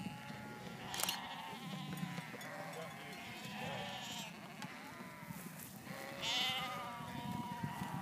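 A large flock of ewes and lambs bleating, many calls overlapping, as the flock is driven through a chute. One louder call stands out about six seconds in.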